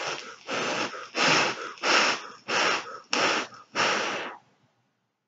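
A person taking a quick series of short, breathy puffs on a vape mod fitted with a dripping atomizer (RDA), about seven puffs in a row that stop near the end.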